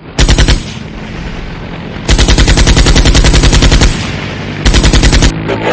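Automatic machine-gun fire in three bursts of rapid shots: a short burst, a long one of nearly two seconds, then a short one near the end, with a low hum between bursts.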